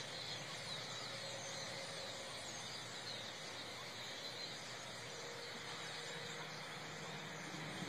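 A huge flock of birds all calling at once: a faint, steady din of countless overlapping chirps.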